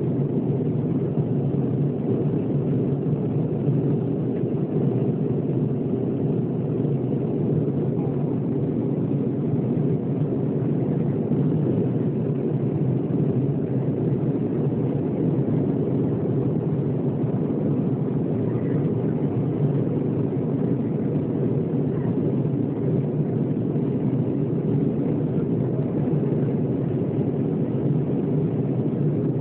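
Steady cabin noise of an Airbus A320 in flight: an even, low rush of jet engines and airflow heard from inside the cabin at a window seat.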